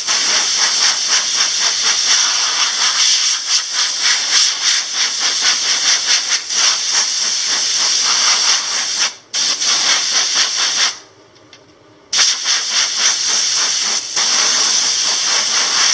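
Compressed air hissing from an air-compressor blow gun as it blows dust out of a reusable electrostatic furnace filter. The hiss wavers steadily, drops out for an instant about nine seconds in, stops for about a second near eleven seconds, then starts again.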